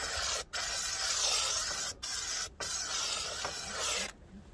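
Kärcher SC2 steam cleaner's detail nozzle hissing out a jet of steam on its low setting. The hiss breaks off briefly three times and stops shortly before the end.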